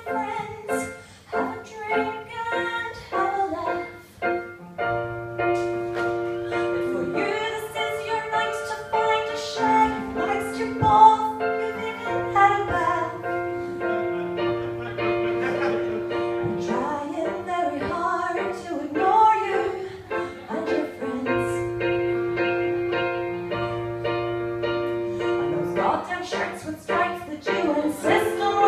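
Electronic keyboard playing held chords, with a woman singing over it at times.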